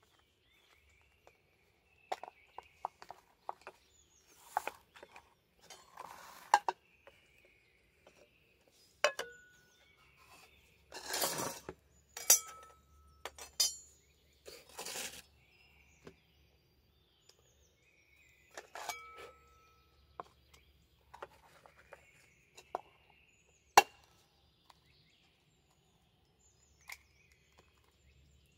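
Scattered clinks, knocks and rustles of camp cooking gear being handled: aluminium pots and bowls, plastic containers and a frying pan set down and moved about, a few knocks leaving a short metallic ring. Birds chirp faintly in between.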